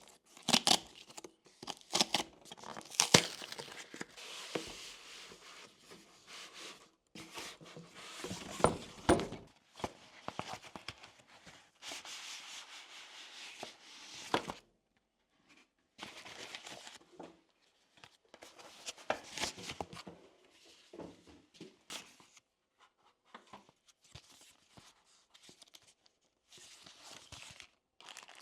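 Packaging handled and opened by hand: rustling, rubbing and tearing of wrapping, with crinkling and scattered sharp clicks and knocks. It comes in uneven spells separated by brief pauses.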